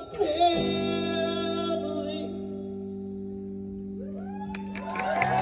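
A band's final chord on acoustic guitars rings out and slowly fades under a last held sung note. About four seconds in, audience cheering starts to swell.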